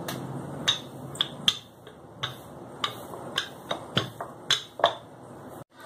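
Wooden rolling pin clacking against a marble rolling board as paratha dough is rolled out: many sharp, irregular knocks, about three a second, over a faint rolling rumble.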